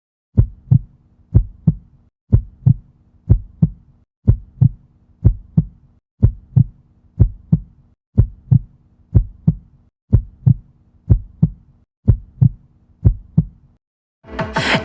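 Heartbeat sound effect: paired low thumps about once a second, with a faint low hum beneath them.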